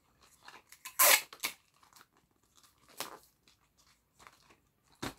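Gift-wrapping paper rustling and crinkling in the hands as a small present is folded and wrapped, in irregular short bursts, the loudest about a second in.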